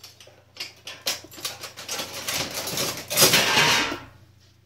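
Kitchen handling noises: a run of small clicks and rustles that builds to a louder rustle for about a second near the end, from raw meat and its packaging or bowl being handled.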